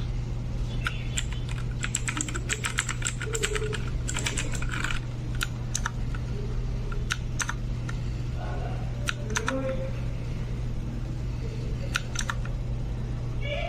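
Typing on a Digitalix K620 61-key mechanical keyboard with clicky blue switches: a fast run of key clicks from about two to five seconds in, then scattered single keystrokes, over a steady low hum.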